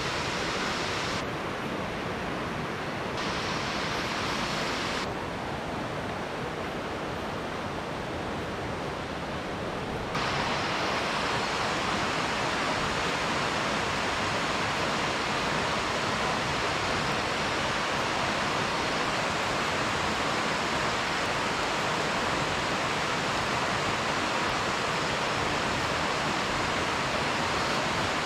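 Steady rush of river water flowing over rocks. Its brightness shifts abruptly a few times in the first ten seconds, then holds steady.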